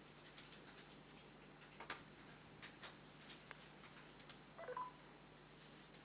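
Near silence with faint, scattered clicks and a brief electronic beep of a few mixed tones about three-quarters of the way through.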